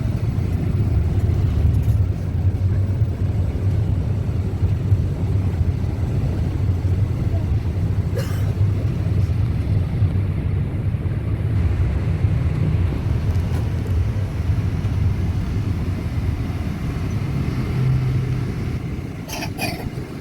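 Catamaran's engine running with a steady low rumble, with a couple of brief knocks on board.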